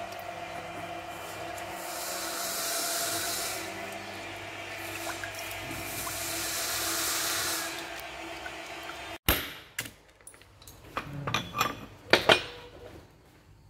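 Workshop noise: a steady machine hum with a swelling hiss. It breaks off abruptly about nine seconds in, and a few light metallic clinks and taps of hand tools follow.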